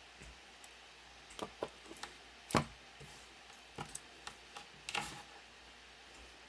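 Small clicks and knocks of alligator clips and jumper wires being handled and an alligator clip snapped onto a 9V battery terminal. They come in two clusters, about a second and a half in and about four to five seconds in, the loudest a sharp click about two and a half seconds in.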